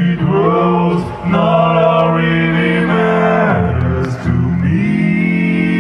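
Song with male singing played loudly through a Fenda F&D F550X 2.1 speaker system with subwoofer, heard in the room; a deep bass note comes in a little after the middle.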